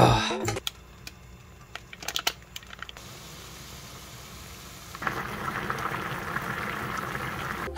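Water boiling in a pot: a steady bubbling hiss that gets louder about five seconds in, after a few light clicks near the start.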